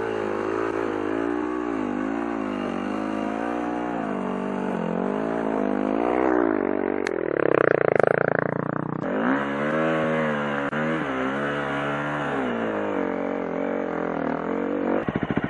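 Four-stroke enduro dirt bike engine running at low revs, its pitch wavering with small throttle changes. It gets louder and rises in a brief surge about halfway through.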